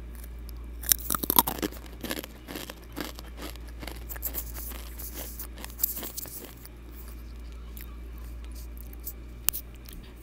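Close-miked crunching and chewing of Takis rolled tortilla chips, picked up by an earbud microphone held at the lips: a dense flurry of crunches in the first half, then sparser mouth clicks, with one sharp click near the end.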